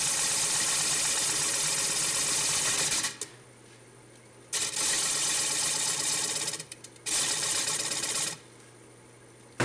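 Half-inch bowl gouge cutting the edge of a spinning jatoba (Brazilian cherry) cutting-board blank on a wood lathe: a loud steady hiss of the cut in three passes. Between passes, about three seconds in and again near the end, the tool comes off the wood and only the lathe's low hum is left.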